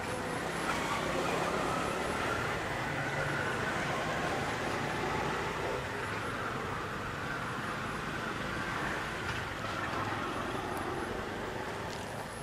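Steady outdoor background noise with no distinct event, a continuous even hum like distant traffic, with a few faint clicks near the end.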